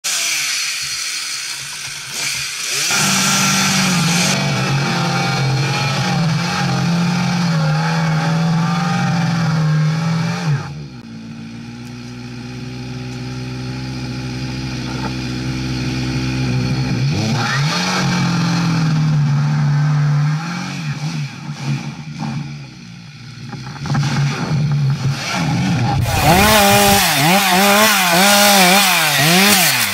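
Chainsaw engine running at high revs, dropping to a lower, steady speed for several seconds in the middle before climbing again. Near the end its pitch rises and falls rapidly as it cuts into a felled trunk.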